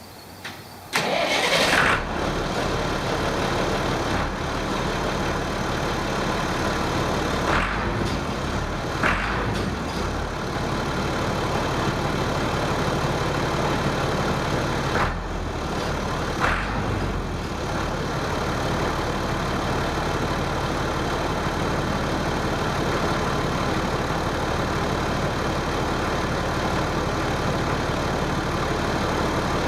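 Massey Ferguson 2705 tractor's six-cylinder diesel engine starting about a second in, then running steadily at idle, with a few brief louder blips.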